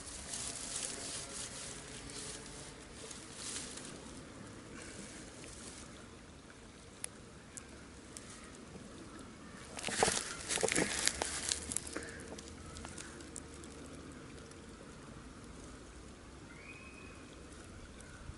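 Reeds and dry grass rustling and crackling as they are pushed aside and trodden underfoot, loudest in a flurry of crackles about ten seconds in.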